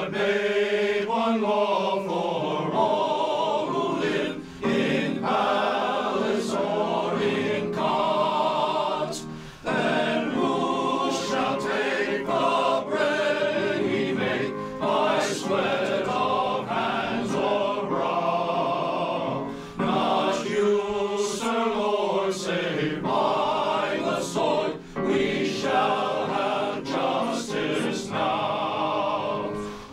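Male voice choir singing an anthem in parts, with long held phrases and vibrato. The singing breaks off for a brief breath between phrases about every five seconds.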